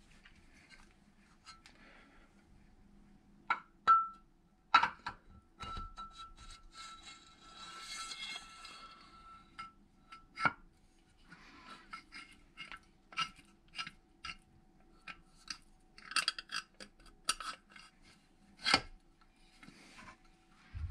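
Hand tools and small metal parts clinking, tapping and knocking in an irregular series of sharp clicks, with a short rubbing or scraping sound about midway.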